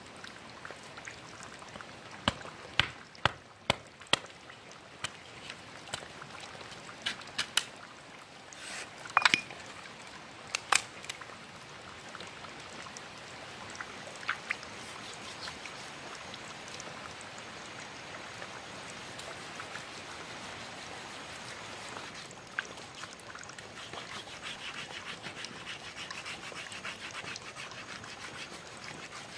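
Sharp cracks and knocks as a hand-held blade splits a length of bamboo, about a dozen over the first ten seconds. Then a steady rasping as a thin bamboo sliver is rubbed back and forth on a flat stone to sharpen it, brighter near the end.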